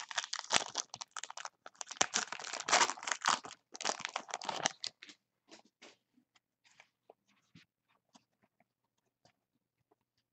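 Foil wrapper of a Panini Prizm Jumbo basketball card pack crinkling and tearing as it is opened by hand for about five seconds, followed by a few faint clicks of the cards being handled.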